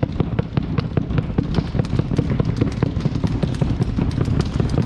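Audience drumroll of fast, irregular claps and beats, many a second, building suspense before a placing is announced.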